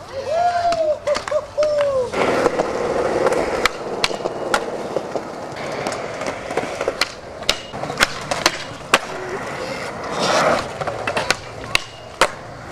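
Skateboard wheels rolling on concrete, cut by many sharp clacks of boards popping and landing, with a louder scraping stretch near the end as a board slides along a metal handrail. A wavering high tone sounds in the first couple of seconds.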